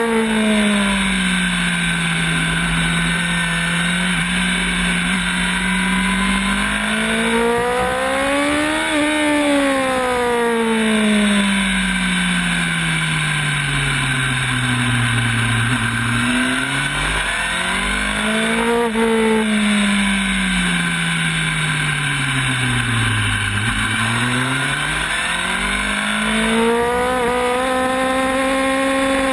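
Onboard sound of a sport motorcycle's engine lapping a race track, its note climbing under throttle and sinking as it slows, with a quick sharp rise partway through, over a steady rush of wind.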